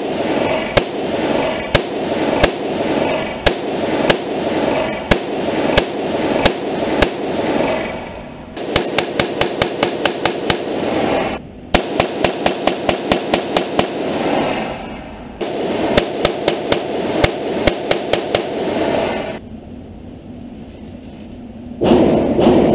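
.22 rimfire gunshots at an indoor range: single sharp cracks about every half second, broken by two quick strings of rapid fire at about four to five shots a second in the middle. It goes quieter near the end.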